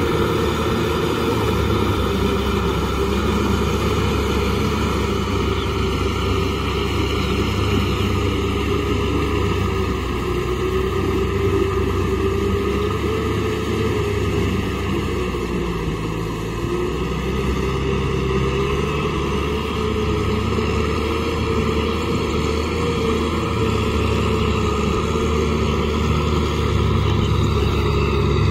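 Kubota M6040SU tractor's diesel engine running steadily under load while it pushes and churns mud in a flooded field, its note wavering slightly up and down.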